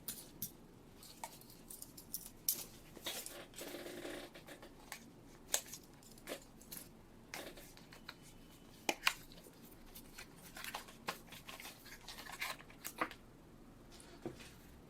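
A small cardboard box being opened and unpacked by hand: scattered taps, clicks and scrapes of packaging, with a longer rustle about three seconds in.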